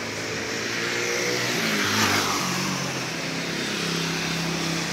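A car driving past on the street, its engine and tyre noise swelling to a peak about two seconds in and then falling away, with a steady engine hum from traffic afterwards.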